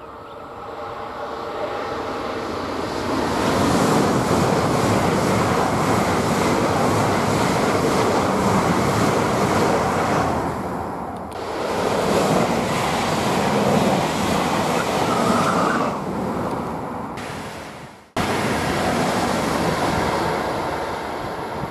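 ICE high-speed train passing at speed: a rush of wheel and air noise that builds, stays loud for several seconds, swells again and fades. After a brief cut-out near the end, another ICE is heard approaching.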